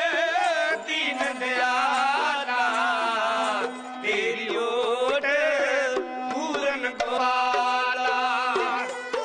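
Dhadi music: a bowed sarangi and small hourglass dhadd drums tapped in rhythm, with male voices singing over a steady drone.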